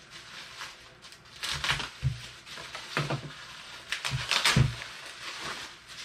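Plastic bag crinkling as it is cut with a utility knife and pulled open around a refractory firebrick, in several rustling bursts with a few dull knocks.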